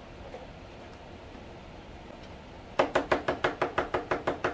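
A fast run of about a dozen sharp knocks, roughly six a second, each with a brief ringing tail at the same pitch, starting a little under three seconds in.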